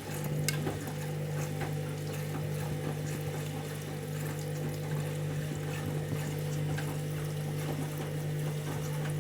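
Candy Grand'O Vita washing machine filling with water for its final rinse: a steady rush of incoming water with a constant hum.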